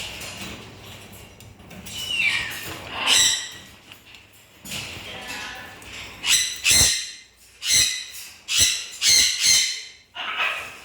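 Parrots giving loud, harsh squawks: a couple of calls early, then a quick run of them in the second half.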